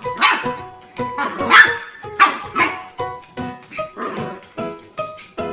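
A dog barks about four times in the first three seconds, over background music of plucked notes.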